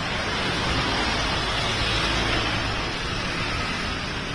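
Traffic moving through heavy rain on a wet road: a steady hiss of rain and tyres on water over a low engine rumble, swelling a little about two seconds in and easing off towards the end.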